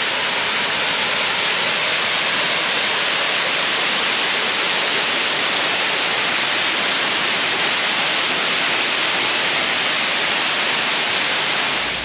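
Waterfall cascading down a rock face: a loud, steady, even rush of falling water that cuts off abruptly at the very end.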